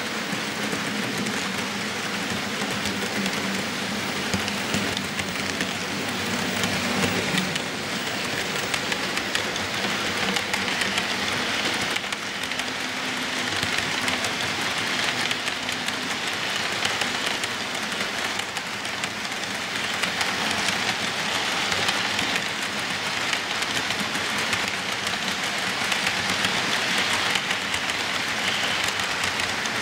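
HO-scale model freight train rolling past close by. A low motor hum fades out after about seven seconds as the locomotives go by. A steady rushing rattle of the freight cars' wheels on the rails follows.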